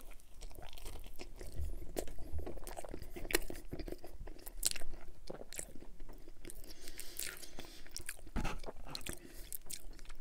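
Close-miked biting and chewing of a thin, crisp cauliflower-crust pizza slice, with irregular crunches from the crust throughout.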